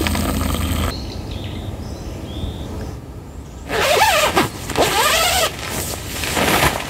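Coffee pours from a stainless percolator into an enamel mug for about the first second, then stops. After a quieter stretch, two long calls that bend in pitch come a little past the middle, and a short rush of noise follows near the end.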